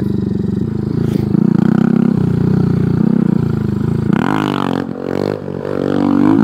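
Honda Grom MSX125's single-cylinder four-stroke engine running at low revs. About four seconds in it revs up sharply, dips briefly and climbs again as the rider pops a clutch-up wheelie.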